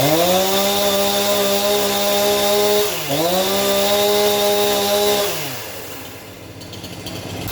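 Husqvarna 353 two-stroke chainsaw engine revved from idle to full throttle and held steady, with a brief dip just before the 3-second mark and a second full-throttle burst, then dropping back toward idle about two-thirds of the way through.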